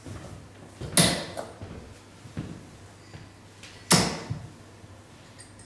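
Two steel-tip darts striking a Winmau Blade bristle dartboard, each a sharp thud, the first about a second in and the second nearly three seconds later.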